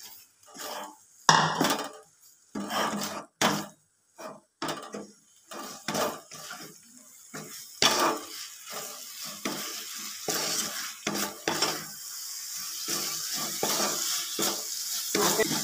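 A wooden spatula scrapes and knocks against a karai in irregular strokes as grated coconut is stirred into thick, sticky date-palm jaggery. From about ten seconds in, a steady hiss grows beneath the strokes.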